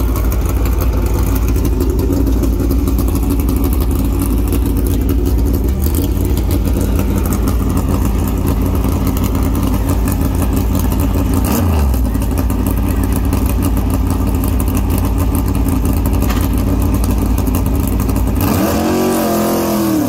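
A NASCAR Cup Chevrolet Camaro's pushrod V8 runs loudly and steadily at idle in the pit stall. Near the end the revs rise and fall as the car pulls away.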